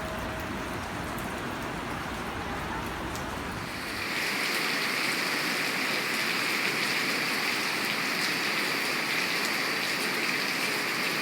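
Heavy rain falling steadily, a continuous wash of drops that turns louder and brighter about four seconds in.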